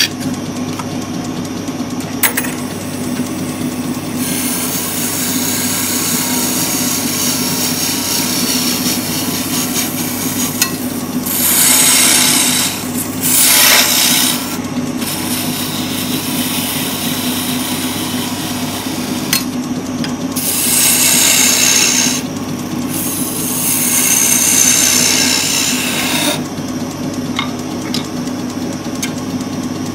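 Wood lathe running with a steady hum while a hand-held turning tool cuts into a spinning purpleheart blank, heard as scraping bursts of a few seconds each, the loudest about halfway through and again in the second half.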